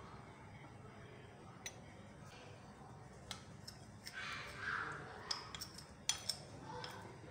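Metal spoon scraping coconut oil out of a tin and clinking and scraping against a ceramic bowl as it is stirred into cornflour. Scattered light clicks, a longer scrape about four seconds in, then a quick run of sharp clinks.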